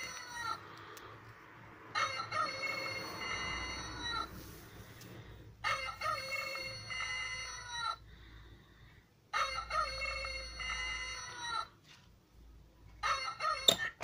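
Chicken-shaped quartz alarm clock's electronic rooster-crow alarm sounding, a crow of about two seconds repeated about every three and a half seconds, four times. The last crow breaks off near the end with a click as the button on the clock's comb is pressed.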